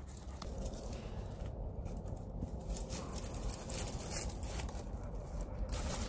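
Quiet outdoor background: a low steady rumble with faint rustling and a few small ticks, with no loud event.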